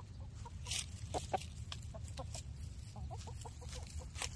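Chickens clucking, a few short soft clucks about a second in and again near three seconds, with brief crackly rustles among dry leaves and a steady low rumble underneath.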